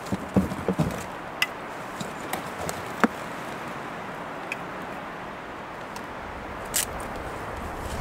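Steady rush of wind through the forest, with a few sharp knocks and clinks of gear and drink cans being handled in the first three seconds and a brief noisy burst near the end.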